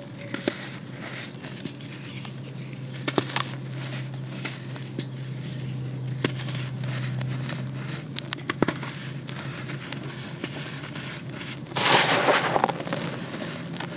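Dry red dirt crumbling in the hands: lumps and slabs snapping with scattered sharp cracks. About twelve seconds in, a louder burst of gritty crunching as the hands dig into the powdery dirt in a plastic basin.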